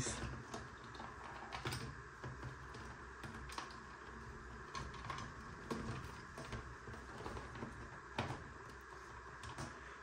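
Small scattered plastic clicks and rustling as wires and connectors are pressed and tucked into the plastic housing of a Fisher & Paykel washer's control board, about one click every second or so.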